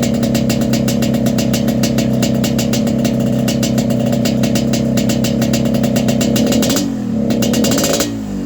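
Yamaha RX-King 135cc single-cylinder two-stroke engine running through a 'kolong' exhaust, held steady for several seconds. Near the end the revs fall and pick up again.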